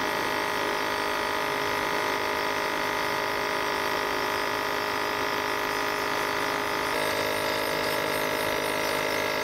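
Compressor nebulizer running with a steady electric buzz, misting saline for inhalation.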